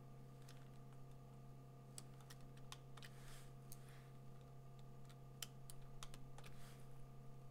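Faint, irregular clicks of computer keyboard keys being pressed, over a steady low electrical hum.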